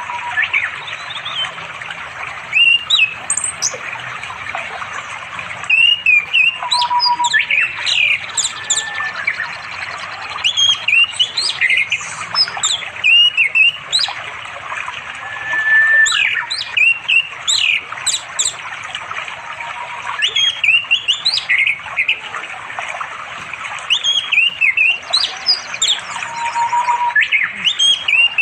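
Orange-headed thrush singing in bursts of quick, varied whistles and chirps, each burst a second or two long and coming every few seconds; the uploader takes it for a male calling a female to mate. A steady rush of a flowing stream runs underneath.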